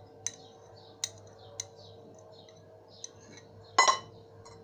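Metal fork clinking and scraping against bowls while chili sauce is scraped onto mango pieces: a few light taps, then one louder clink that rings briefly near the end.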